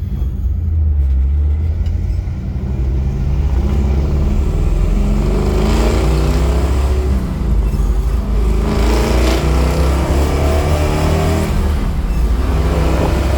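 Built 327 V8 of a 1964 Chevrolet Impala SS running with a deep rumble, its revs climbing three times and dropping back between.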